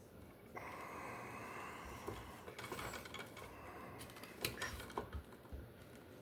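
Hand tools working electrical cable in a wall box: a steady rushing sound for about three seconds, then a run of sharp metallic clicks and snips, the loudest about four and a half seconds in.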